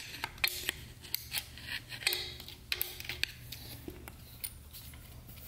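Faint, irregular light metallic clicks and scrapes of a steel screwdriver tip probing inside an aluminium transmission valve body bore, trying to lift out a small washer.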